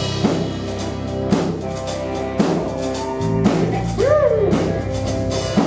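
Instrumental introduction to a worship song: a drum kit keeps a steady beat, with a hit about once a second, under a deep bass line and sustained chords.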